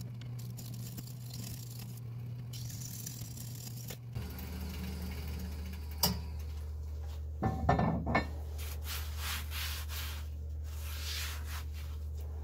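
Nova 3000 wood lathe humming steadily, its hum dropping in pitch about four seconds in, with a negative rake scraper shaving lightly on the spinning acacia bowl. A click and a few knocks come around the middle, and a series of short rubbing strokes follows near the end.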